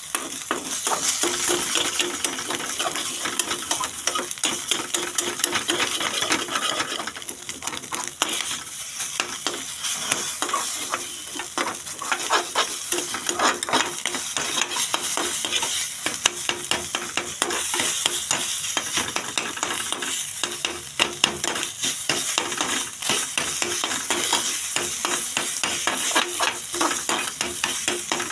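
Scrambled egg sizzling in oil in a frying pan while a metal spoon stirs it, scraping and clicking against the pan almost without pause.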